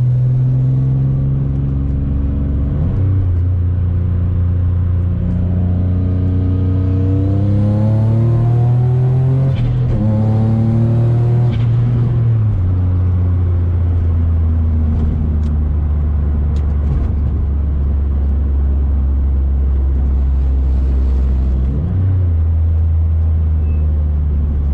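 Single-turbo Infiniti G35's VQ35 V6 engine running under way. Its note steps down about three seconds in, climbs steadily for several seconds as the car accelerates, drops back sharply about twelve seconds in, then holds a steady cruising drone.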